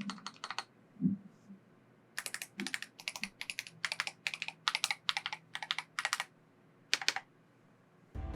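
Typing on a Glorious GMMK 3 Pro HE keyboard fitted with PBT keycaps: a few scattered keystrokes, then a quick run of key presses, with a couple of dull low thumps early on. Music comes in right at the end.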